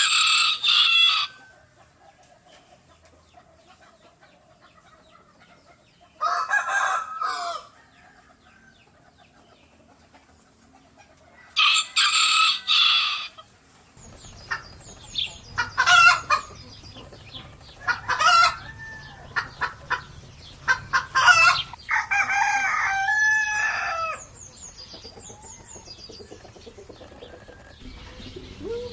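A rooster crowing three times, about six seconds apart, each crow lasting about a second and a half. Then, over a louder background, chickens cluck in a run of short sharp calls, with a longer call a little before the end.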